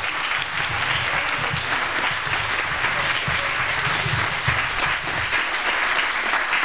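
Audience applauding: dense, steady clapping right after the end of a live reading.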